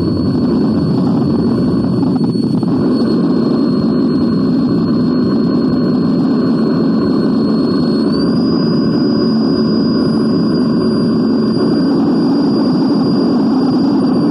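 Loud, unbroken wall of electronic noise, thick in the low-middle range, with a thin high whine on top that steps up in pitch about eight seconds in.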